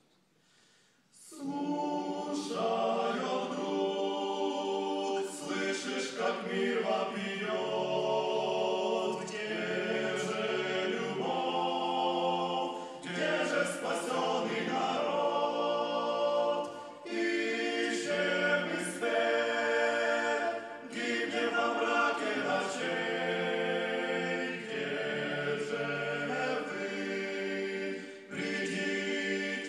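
Several voices singing together a cappella in harmony, starting about a second in after near silence, with brief breaks between phrases.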